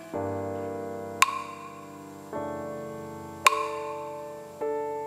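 Slow keyboard chords of a gospel song's introduction, a new sustained chord struck about every two seconds and fading away, with a sharp percussive click twice between them.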